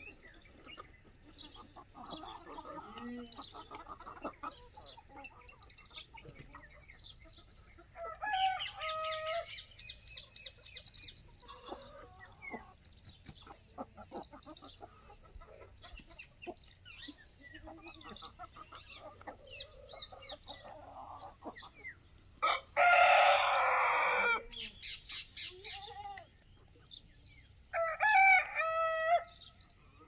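Aseel roosters crowing several times, with hens clucking and chirping in between.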